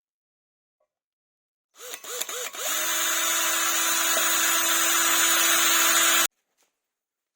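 Electric drill started with a few short trigger pulls, each spinning the motor up, then held on and running steadily for about three and a half seconds before stopping abruptly.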